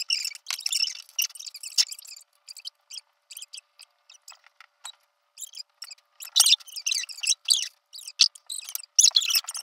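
Irregular squeaky rubbing and scrubbing strokes of a bathroom fixture being cleaned by hand. The strokes come in short clusters and are busiest around two-thirds of the way through.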